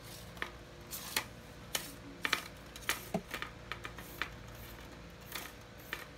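Telescopic fishing rod being handled, with about a dozen light, irregular clicks and taps as its sections knock together.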